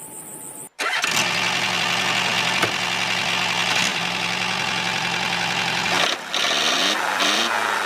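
Small motor of a model tractor machine running steadily with a low hum and mechanical whirr. It starts suddenly just under a second in and drops out briefly about six seconds in.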